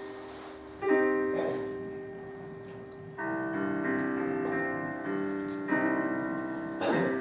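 Piano playing a slow introduction: full chords struck about four times, each left to ring and fade before the next.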